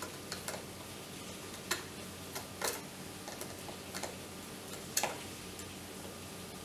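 Screwdriver turning a small screw into the plastic base of an electric kettle to fix its new power-connector holder: faint, irregular clicks and scrapes, with a few louder clicks about two, two and a half and five seconds in.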